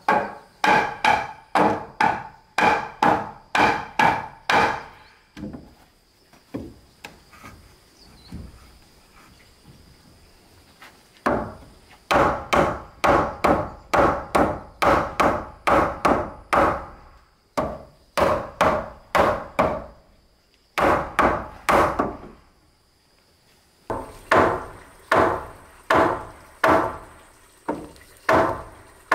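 Hammer nailing a timber frame together: runs of sharp blows, about two a second, each with a short ring, broken by pauses of a few seconds.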